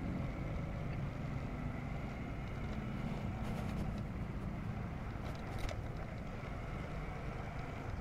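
Steady low rumble of a vehicle engine and road noise, with a few faint clicks around the middle.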